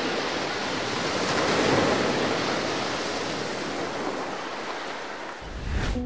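Sea surf washing onto a shore: one long wave that swells to its loudest about two seconds in and slowly fades away.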